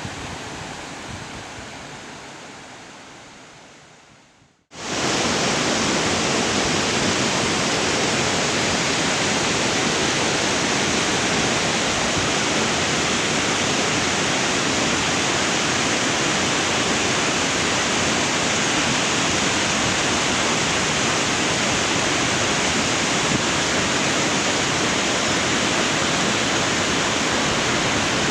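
Steady rushing of falling water, like a waterfall, with no pitch or rhythm. It is cut in abruptly about five seconds in, after an earlier water sound fades out to a moment of near silence.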